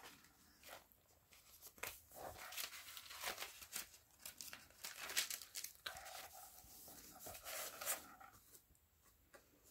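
Thick paper pages of a handmade junk journal being turned and handled: faint paper rustling and crinkling with small clicks and taps, busiest in the middle.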